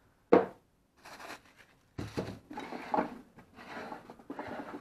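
Handling noise in a plywood tool caddy: one sharp knock just after the start, then irregular rustling and small knocks as the things stored in it are moved about.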